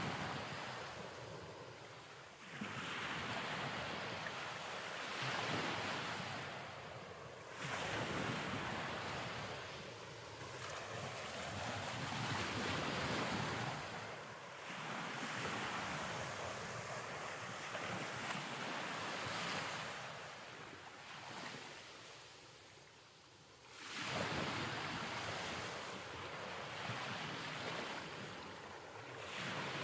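Ocean surf: waves washing in and drawing back, a rushing swell of noise rising and fading every few seconds.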